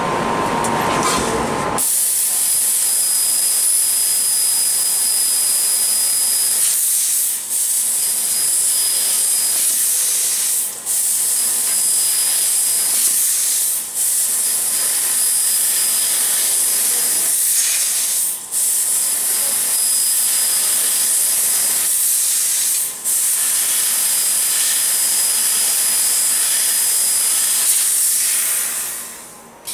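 Automatic laser tube cutting machine cutting a metal tube: a loud, steady, high hiss of gas blowing from the cutting head. It starts about two seconds in and breaks off briefly five times.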